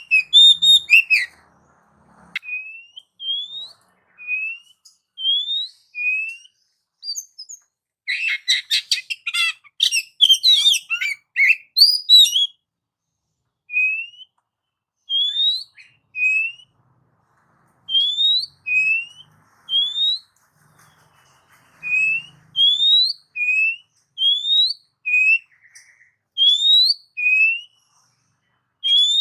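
Oriental magpie-robin singing: a string of short, rising whistled notes, roughly one a second, broken by a burst of rapid, varied chattering song about eight to twelve seconds in.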